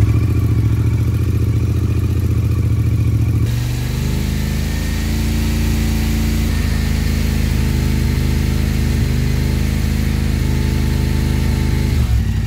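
Motorcycle engine running at idle just after being started, a steady note that shifts about three and a half seconds in. It is idling to heat the exhaust header and test a fibreglass heatshield wrapped around it.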